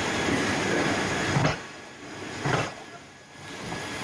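Passenger coaches of an express train rolling past along the platform. A steady rumble drops away about a second and a half in, then single wheel thumps sound over the rail joints.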